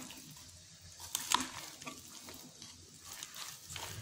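A spoon stirring chopped salad with a creamy dressing in a glass bowl. A few light clicks are scattered through the stirring, the sharpest about a second in.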